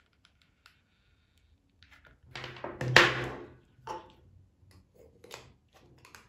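Hard plastic parts handled on a tabletop: faint clicks, then a scraping sound that ends in a sharp knock about three seconds in, followed by light taps and clicks.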